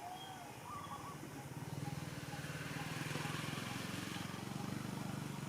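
A small engine running, getting louder about two seconds in and then holding steady. A bird chirps briefly near the start.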